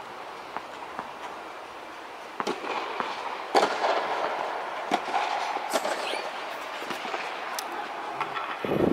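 Tennis balls struck by rackets and bouncing on a clay court, an irregular series of sharp pops that echo inside the inflated dome, over a steady hiss that gets louder about two and a half seconds in. A muffled low thump comes at the very end.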